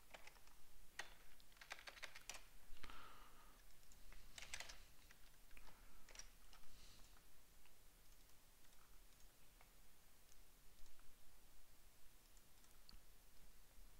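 Faint typing on a computer keyboard: scattered key clicks in small bursts, busier in the first half and sparser later.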